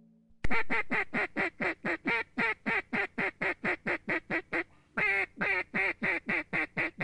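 A fast run of duck quacks, about five a second, each note dropping in pitch. There is a short break near the middle before the run picks up again.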